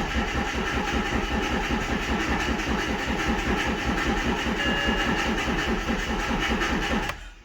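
BMW 1 Series diesel engine being cranked by the starter motor, turning over with an even rhythmic pulse for about seven seconds without firing, then stopping. It is turning slowly because the battery is weak.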